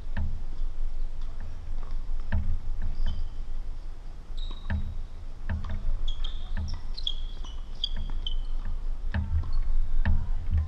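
Tennis rally: the ball is struck by rackets and bounces on the court, giving sharp knocks every second or two. A few brief high squeaks come in the middle.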